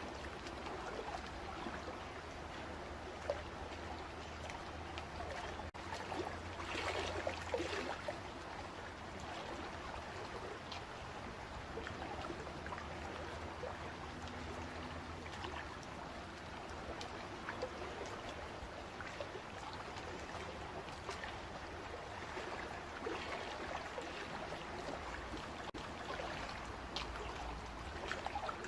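Water flowing steadily, like a small stream, with a busier, louder stretch about seven seconds in.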